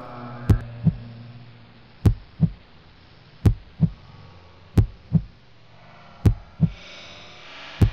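Slow heartbeat: deep lub-dub thumps in pairs, a pair about every second and a half, with a faint hiss rising near the end.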